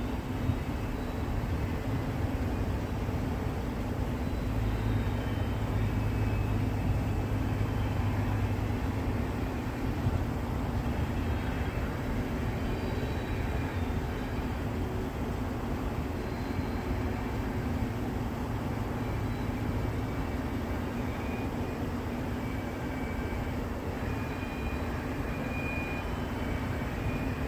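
Double-stacked container cars of a freight train rolling past at a distance: a steady rumble of steel wheels on rail, with faint short high squeals now and then.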